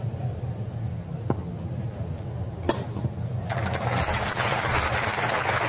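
Tennis ball struck twice by rackets, about a second and a half apart, over a low crowd murmur; a little over halfway through the crowd breaks into applause that swells.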